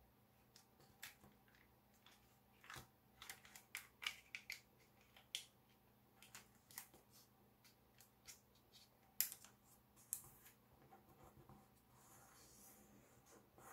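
Gold foil origami paper crinkling and crackling faintly as it is folded and creased by hand: irregular sharp ticks, the loudest about nine seconds in.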